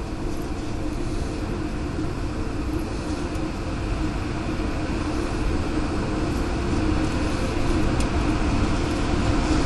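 Tornado wind at close range: a steady, dense, low rushing noise that grows gradually louder.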